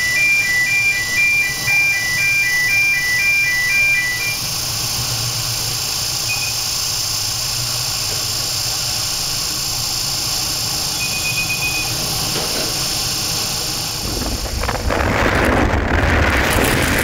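A repeating pattern of short, high electronic beeps over steady wind-and-sea hiss; the beeps stop about four seconds in. About fourteen seconds in, louder gusting wind on the microphone and heavy seas breaking against a ship's bow take over.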